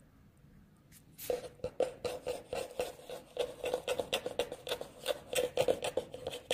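Rapid scraping and rubbing on the phone's body and microphone, about four or five scrapes a second, starting about a second in.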